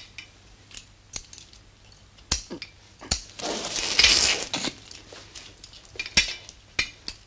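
Surgical steel instruments clicking and clinking, then about three seconds in a loud hissing spurt of blood spraying out for about a second and a half, followed by a few more sharp instrument clicks.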